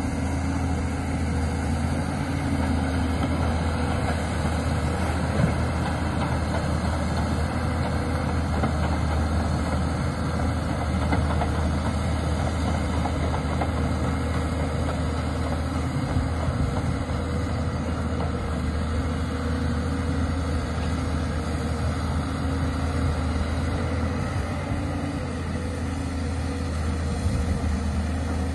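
Diesel engine of a Volvo EC210 amphibious excavator running steadily with a constant low hum while the machine works, its pitch unchanging.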